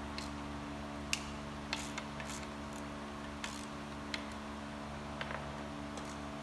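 Scattered, irregular light metallic clicks and taps of hand tools working on a removed Dodge 2.5 L turbo four-cylinder engine, over a steady hum.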